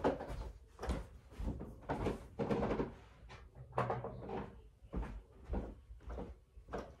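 A string of irregular knocks, thuds and rustles from someone moving about a small room and handling things, like cupboard doors or drawers being opened and shut.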